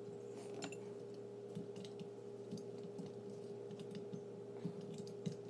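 Small plastic clicks and taps at irregular times, from LEGO minifigures and vehicle parts being handled and pushed into the seats, over a steady hum.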